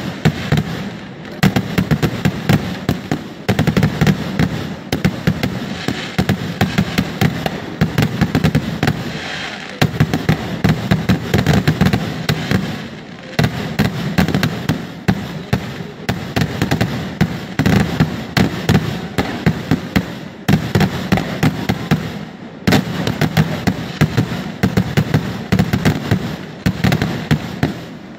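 Kerala temple-festival fireworks (vedikettu) going off: a dense barrage of rapid bangs and crackles in waves, broken by a few short pauses.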